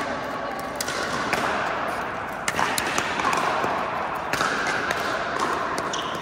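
Pickleball paddles striking a plastic pickleball in a fast volley exchange at the net: a string of sharp, irregularly spaced pops in a large indoor court hall.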